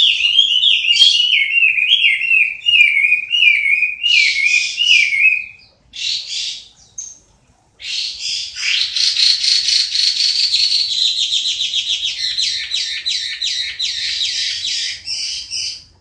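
Chinese hwamei singing: a quick run of repeated rising-and-falling whistled notes, then a pause of about two seconds, then a fast, rasping trill that carries on to the end.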